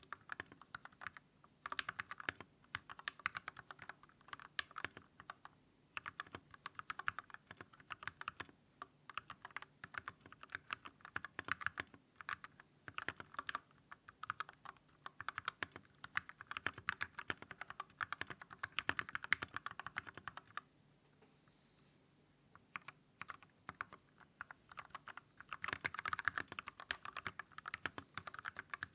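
Continuous typing on an Everglide SK87 tenkeyless keyboard fitted with lubed Gateron Milky Yellow linear switches and XDA keycaps, sitting on a deskmat: a dense run of key clacks. The typing stops for a few seconds about two-thirds of the way through, then picks up again.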